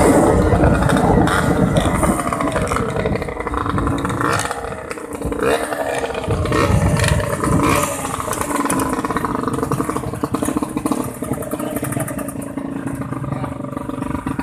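Motorcycle engine running, its pitch rising and falling as it revs, with rattling and clatter over rough ground.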